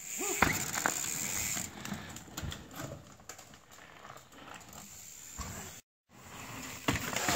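Mountain bike riding over a rough forest trail: tyre noise with scattered knocks and rattles from the bike.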